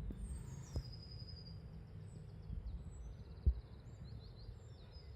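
Uneven low outdoor rumble with a few sharp knocks, and faint short bird chirps above it.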